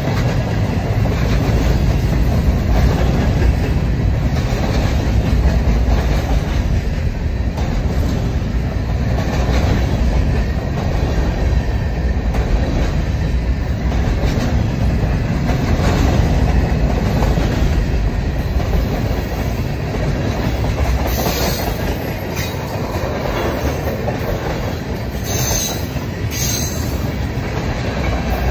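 Freight cars (tank cars and covered hoppers) rolling past close by: a steady heavy rumble with wheels clicking over the rail joints. There are a few brief high wheel squeals in the last several seconds.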